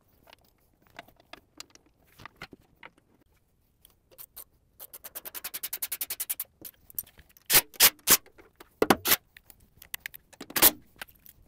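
Hand-tool work on the metal panels of a mini skid steer. Scattered light clicks, then a fast run of even clicks, about ten a second for a second and a half, then several loud short metallic clanks.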